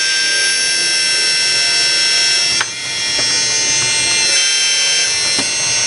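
RC Damitz hydraulic excavator's electric-driven hydraulic pump running with a steady high-pitched whine, its tone shifting slightly as the functions are worked. A brief dip with a click about two and a half seconds in.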